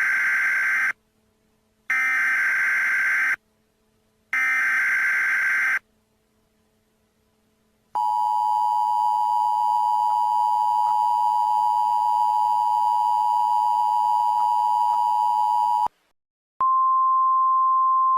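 Emergency Alert System tones: the screeching digital SAME header bursts three times, about a second and a half each, then the two-tone EAS attention signal sounds steadily for about eight seconds. After a short break a single steady beep-like tone begins and holds.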